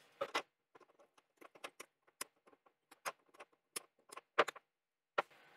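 Duratool flush side cutters snipping off the excess wire leads of resistors soldered into a circuit board: a string of sharp clicks at irregular intervals, some louder than others.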